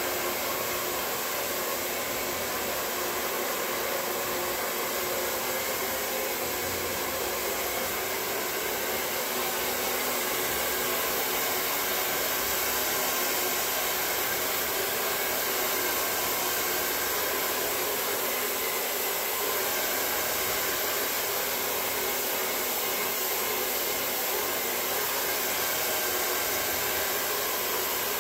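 Handheld hair dryer running steadily, a continuous rush of air as it is worked through a woman's hair.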